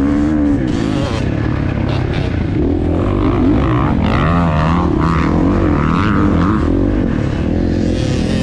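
Dirt bike engine under a helmet-mounted camera, revving up and down as the rider works the throttle through the sand, with wind rushing over the microphone.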